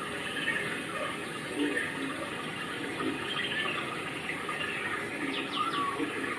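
Steady rush of running water, with a few faint high chirps near the end.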